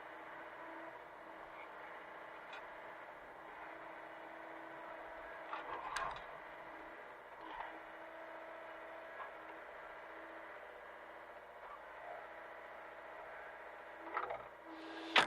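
Hitachi mini excavator's diesel engine running steadily, with a few short knocks about six seconds in, near the middle and a sharper one at the end.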